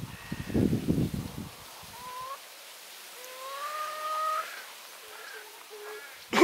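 Domestic hens calling: a short rising call, then a long drawn-out rising call, then a few short clucks. A low rumble fills the first second and a half, and a sudden loud burst comes right at the end.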